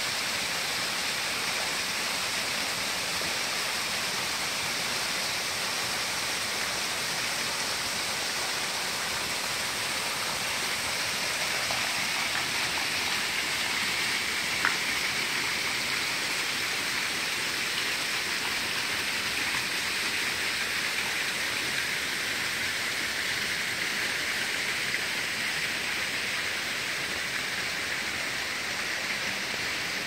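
Waterfall pouring steadily into a pool, a continuous rush of falling water, with one brief click about halfway through.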